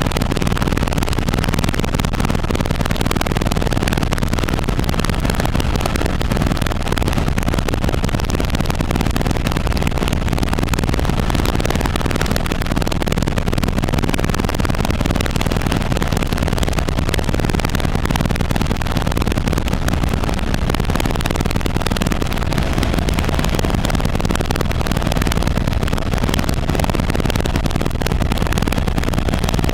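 Helicopter in flight: steady, loud rotor and engine noise with a rapid, even rotor chop.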